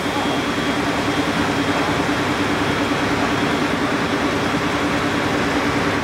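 Claas Jaguar 970 forage harvester's engine running steadily at a standstill, with an even hum, while its rotary maize header folds up for transport.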